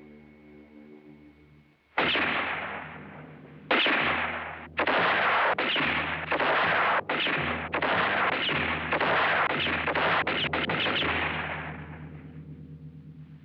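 Gunshots, each ringing out with a long echo: two single shots about two and four seconds in, then a fast string of about a dozen more that dies away near the end.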